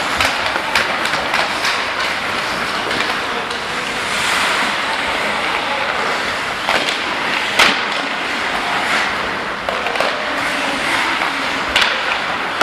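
Ice hockey play in a reverberant arena: skate blades scraping the ice over a steady hiss of rink noise, with scattered sharp clacks of sticks, puck and boards. The loudest clack comes a little past halfway, with another near the end.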